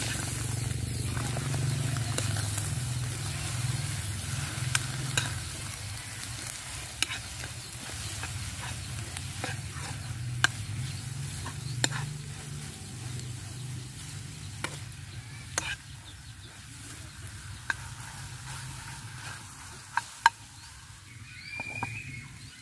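Eggs frying in a non-stick pan: a steady sizzle that slowly dies down. A metal spatula taps and scrapes against the pan about a dozen times as the eggs are cut and turned.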